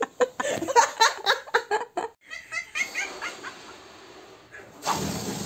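Person laughing hard in quick rhythmic bursts, about five a second, tailing off after about two seconds into short squeaky giggles. Near the end a steady breathy rush of noise starts.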